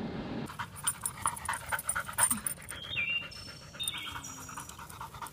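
Yellow Labrador retriever panting, with a few short high chirps about three to four seconds in.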